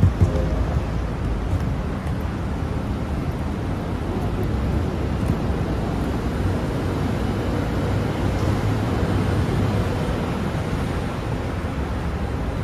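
Steady outdoor traffic rumble with wind noise on the microphone.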